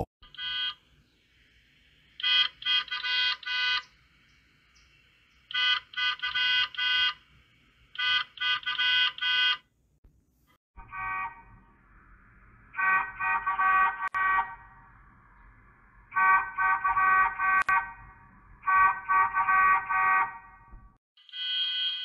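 Cartoon school bus horn sound effect, electronically pitch-shifted: groups of several quick honks every two to three seconds. The honks are higher-pitched in the first half and lower-pitched from about eleven seconds in.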